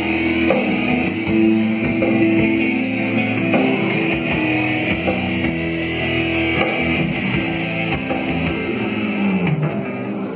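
A band playing an instrumental passage with no singing: guitar over a drum kit beat. Near the end a low note slides down in pitch.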